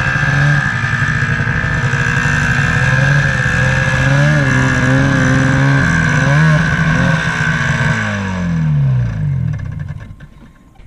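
Snowmobile engine running and revving unevenly while the sled is driven up onto a trailer. Its pitch slides down and the sound dies away near the end.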